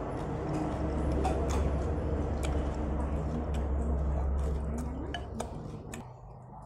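Close-up wet chewing and mouth smacking while eating noodles, with many short sharp clicks, over a low steady hum that drops away near the end.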